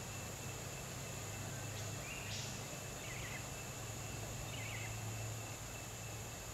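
Outdoor bush ambience: a steady high-pitched insect drone over a low hum, with a brief hiss about two seconds in and two short bird chirps near the middle.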